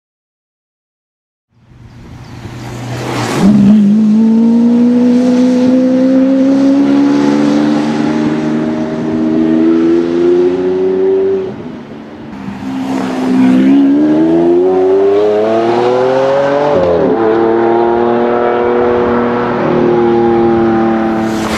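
Silence for the first second and a half, then a Lamborghini Aventador's V12 with a Supersprint exhaust accelerating hard from a launch, its rear tyres spinning, with a sharp crack about three seconds in. The engine note climbs steadily through one gear, drops briefly at a gear change about halfway through, climbs again and shifts once more, then holds.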